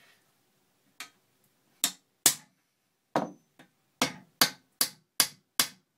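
Hammer striking a steel rivet on a scale locomotive's mild-steel frame, closing the rivet into its countersink. About ten sharp metallic blows start about a second in, spaced unevenly at first, then steadily at about two and a half a second.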